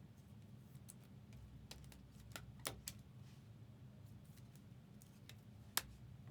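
A few faint, scattered light clicks and taps over a low steady hum, with the sharpest click near the end.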